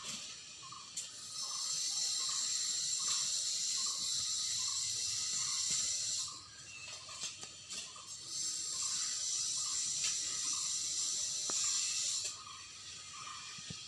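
Outdoor insect chorus: a high, shrill buzz swells in twice for several seconds each time, over a steady, evenly pulsing call repeating about two to three times a second.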